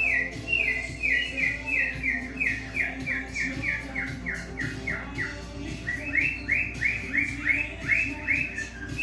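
Male cockatiel singing: a rapid string of short, high, falling chirps, about three or four a second, with a brief lull about halfway through. Music plays softly underneath.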